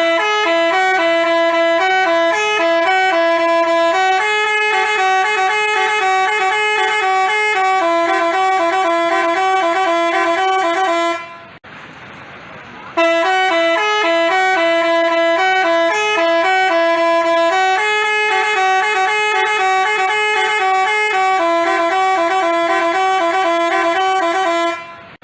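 Basuri-type telolet musical horn playing a melody of stepped, steady horn tones. It stops about eleven seconds in and, after a short gap, plays the same tune again.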